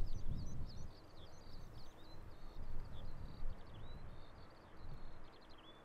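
Small songbirds chirping in quick, rising and falling notes, over a low rumble that fades after the first second.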